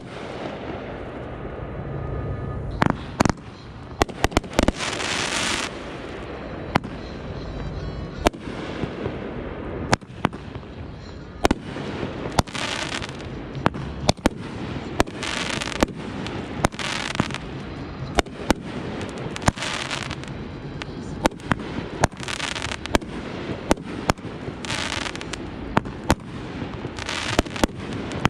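Consumer aerial fireworks going off in a rapid string of sharp bangs, some bursts followed by about a second of crackling hiss.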